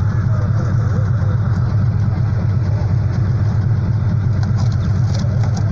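Pickup recovery truck's engine idling steadily, a dense low rumble.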